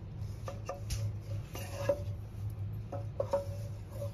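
Wooden spatula stirring thick, creamy dal in a metal pressure cooker, with several short scrapes and knocks against the pot over a low steady hum.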